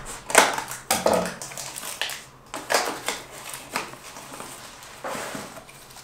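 Scissors cutting through packing tape on a small cardboard box, then the box flaps pulled open and a bubble-wrapped item lifted out: a run of irregular scraping, rustling and crinkling noises.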